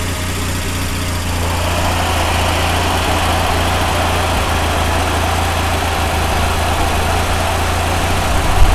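Engine of a big-tyred 'Bars' all-terrain vehicle running steadily with a low hum. About a second and a half in, a higher-pitched running noise joins and the sound grows a little louder.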